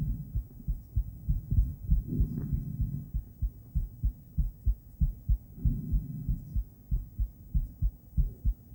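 A woman's heartbeat played through a handheld ultrasonic Doppler device: a steady run of low, rhythmic thumps, with a soft swell of sound between some of the beats.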